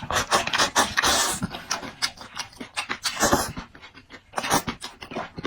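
Close-miked eating sounds: wet smacking and clicking, with two longer hissy slurps, one about a second in and one about three seconds in.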